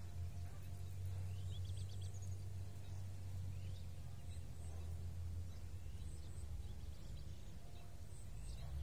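Birds chirping in short, rising calls and faint high double peeps every second or two, over a steady low rumble.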